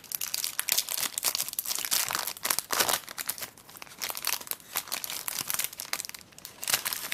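Foil wrapper of a Star Wars Force Attax trading-card booster pack crinkling and tearing as it is ripped open by hand, with a continuous run of sharp crackles.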